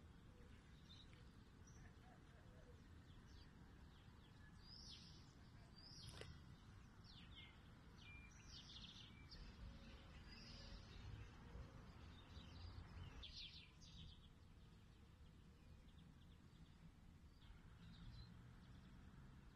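Faint bird chirps, many short high calls clustered through the middle, over a low steady rumble of background noise.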